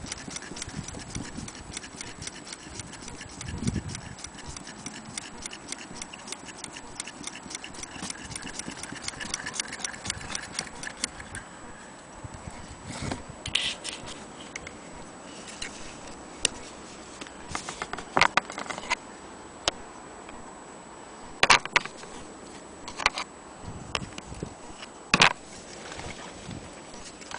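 Willcox & Gibbs chain-stitch sewing machine running, its needle mechanism giving a fast, even ticking that stops about twelve seconds in. After it come a few scattered clicks and knocks from the machine's metal parts being handled.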